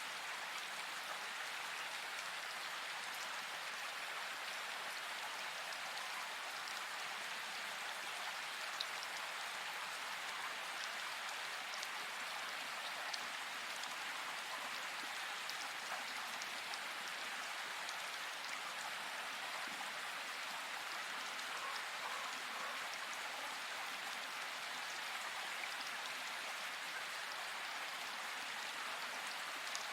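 Steady hiss of falling rain, with faint scattered drop ticks.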